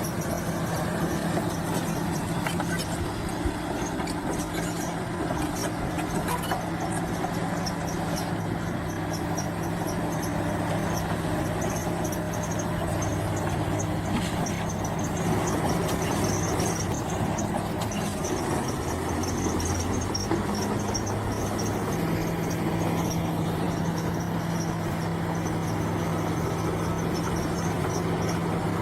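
Bulldozer's diesel engine running steadily under load, with a constant low hum and scattered clanks from the machine.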